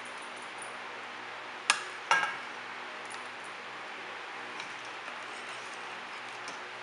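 Kitchenware knocking together: two sharp, ringing clinks about half a second apart as a spatula and bowls meet, then a few faint taps, over a steady hiss.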